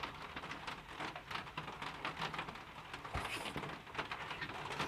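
Slime being handled by hand, making faint, rapid little clicks and crackles.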